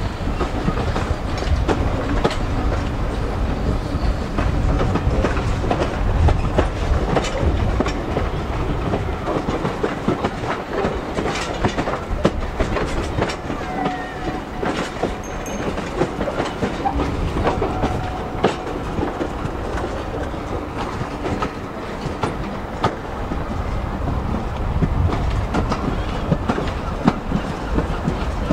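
Passenger train carriage running along the track, its wheels clicking and clattering irregularly over the rail joints under a steady rumble.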